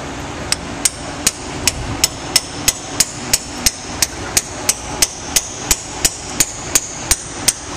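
Hammer striking a hand chisel in light, evenly spaced taps, about three a second, each with a short metallic ring. The chisel is chipping hardened marine concretion, a crust of calcium, corrosion and coal, off the steam chest of the USS Monitor's steam engine.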